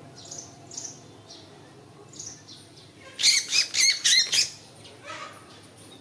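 A small songbird calling: a few faint high chirps, then a little after three seconds in a loud quick run of about six sharp chirps, each falling in pitch.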